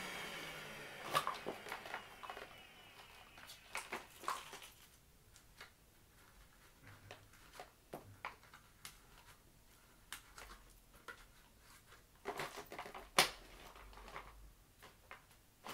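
Cordless Dyson stick vacuum switched off, its motor dying away over the first second or so, followed by scattered sharp plastic clicks and knocks as the floor head is detached and handled, with a louder clack near the end.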